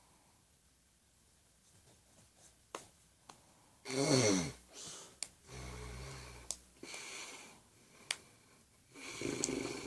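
Man snoring in his sleep. It is quiet for the first few seconds, then a loud snorting snore comes about four seconds in, a deeper snore follows, and another starts near the end. A few faint clicks are scattered between them.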